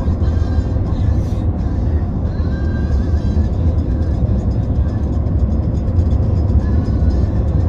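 Music playing over the steady low rumble of a car driving, heard from inside the cabin.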